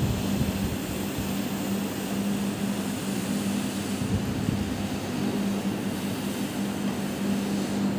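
Single-disc rotary floor scrubber running steadily with a constant hum, its rotating brush shampooing a carpet.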